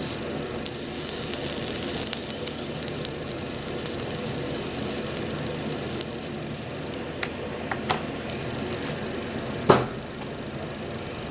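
Flux sizzling as a hot soldering iron's large chisel tip is held on a thick 10 mm² copper cable. The sizzle is strongest in the first few seconds and then thins to scattered crackles. One sharp click comes near the end.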